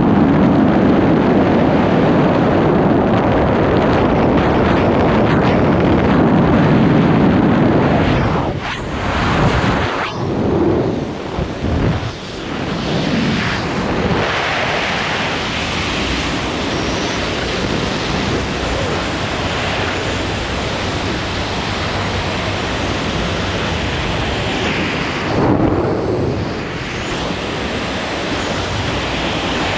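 Loud, steady rush of freefall airflow buffeting the microphone during wingsuit flight. The rush wavers and dips for a few seconds about a third of the way in, and again briefly near the end.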